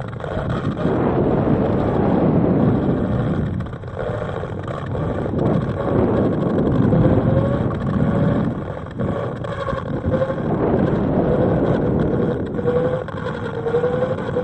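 Wind buffeting the microphones of a 360 camera riding on a rising high-altitude balloon payload: a loud, gusting rush with no clear rhythm. A faint wavering tone comes in about halfway and grows stronger near the end.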